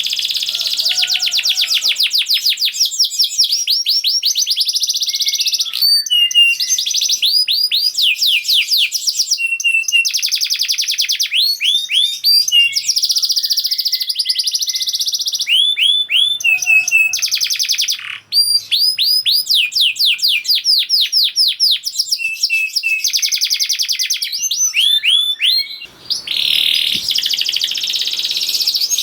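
Domestic canary singing a fast, tightly packed song: rapid runs of repeated chirps and trills, switching to a new phrase every second or two.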